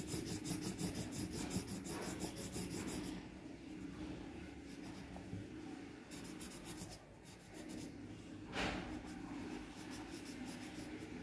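Colouring pen scribbling back and forth on paper, colouring in a circle: rapid strokes for the first three seconds, then fainter, with one short louder rub about eight and a half seconds in.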